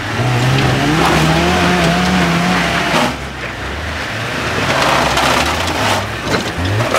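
Suzuki SJ off-road jeep's engine revving hard under load as it climbs over rock: the pitch rises in the first second and is held high for a couple of seconds, then drops and picks up again, with tyres scrabbling and spinning on the rock.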